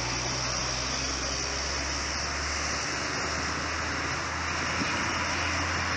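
Distant diesel locomotive engine running with a low steady hum that steps up in pitch about three seconds in, under an even hiss of wind and outdoor noise.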